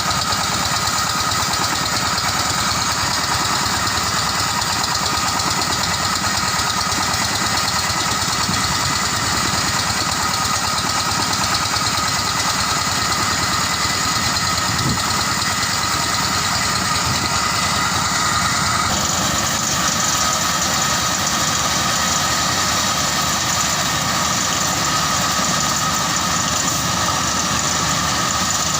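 Motorised rice thresher running steadily: its small engine and spinning threshing drum make a continuous mechanical drone. The sound shifts slightly about two-thirds of the way in.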